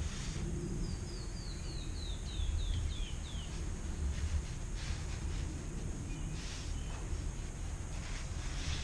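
A bird sings a cascade of about ten short, down-slurred whistled notes, each a little lower than the last, over a steady low rumble. A few soft brushing sounds follow later.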